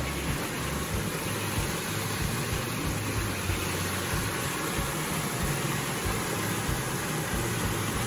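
Small stream cascading over rocks: a steady rush of running water, with an uneven low rumble underneath.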